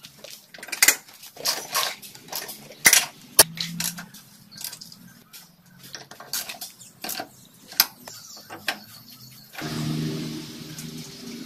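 Steel bolts, nuts, washers and hand tools clinking and knocking as a buggy's rear swing arm and shock absorber are bolted together by hand: a string of sharp metallic clicks, a few louder knocks among them. About ten seconds in a low steady hum sets in.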